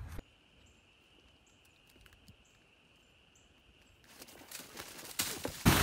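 Quiet outdoor ambience with a steady high insect buzz. From about four seconds in, rustling and crackling build up, and just before the end there is a sudden loud rush of noise.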